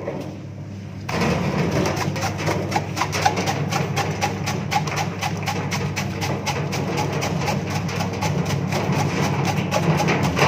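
Porang slicing machine running, a steady motor hum under a rapid, even clatter of tuber slices striking its steel chamber, starting about a second in.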